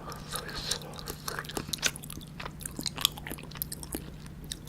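Close-up chewing of a soft, syrup-soaked, microwave-heated gulab jamun: irregular wet mouth clicks and smacks as the sweet melts in the mouth.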